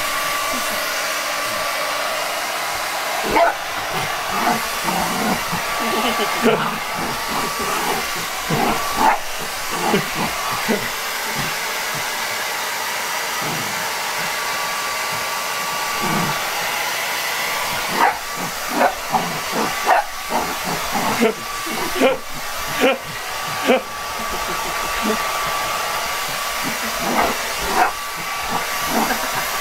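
Handheld hair dryer blowing steadily, with a faint steady tone in its noise. Over it, a schnoodle puppy lets out short barks: a few scattered, then a quick run of them in the second half.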